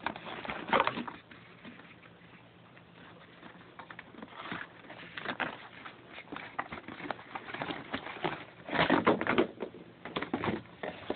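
A cardboard box and its paper inserts being handled and pulled out: irregular rustling, scraping and tapping, with a louder flurry of handling about two seconds before the end.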